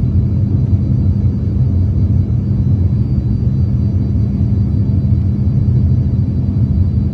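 Steady low rumble of cabin noise in an Embraer ERJ-135 regional jet on approach with flaps extended: its rear-mounted turbofans and the rushing airflow, heard from a window seat, with an even hum running under it.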